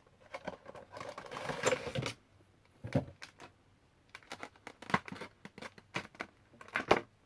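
Handling of a Funko Pop's cardboard box with its plastic window: a rustle of packaging, then a series of sharp taps and clicks as the box is moved and set down.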